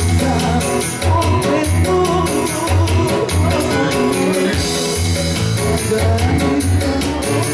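A song with a singing voice over band accompaniment: a pulsing bass line and a steady drum beat.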